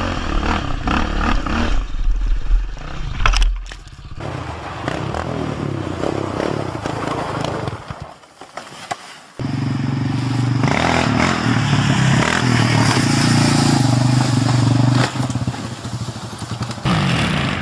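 Quad bike (ATV) engines running and revving in a run of separate short clips, with scraping, clattering and thuds as the quads slide and crash. The sound drops away briefly about eight seconds in.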